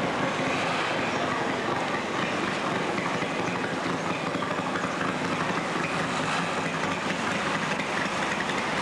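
Longtail boat engine running steadily, a loud continuous drone with no change in speed.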